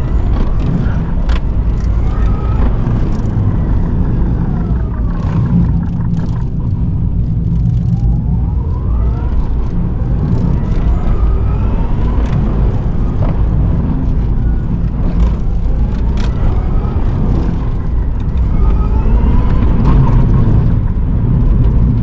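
Rimac Nevera four-motor electric hypercar driven hard: the electric drive whine rises in pitch under acceleration and falls again, over and over, above a heavy steady rumble of tyre and road noise.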